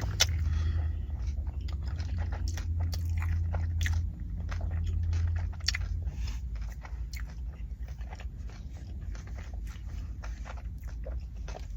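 Close-up chewing of a bacon and egg McMuffin: irregular wet mouth clicks and smacks. A low hum sits underneath and fades about halfway through.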